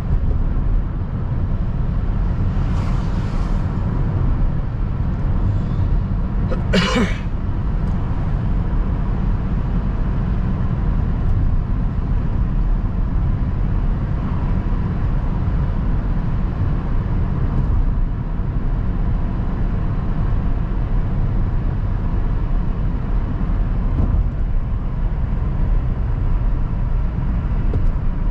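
Steady low road rumble of a car driving, engine and tyres on the road. A brief sharp noise cuts through about seven seconds in.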